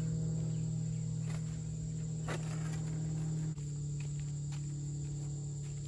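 Steady chorus of insects trilling over a low steady hum, with a couple of faint scuffs of shoes on a flagstone.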